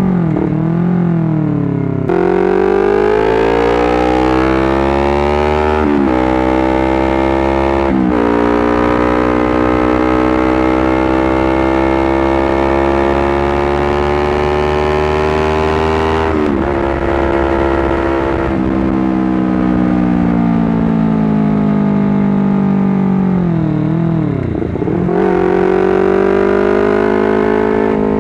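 Honda CBR250RR motorcycle engine and exhaust under way. It pulls up through the gears with two quick shifts a few seconds in, then holds a long steady cruise with the pitch slowly climbing. Past halfway the revs drop as the throttle is closed, then dip sharply and pick up again near the end.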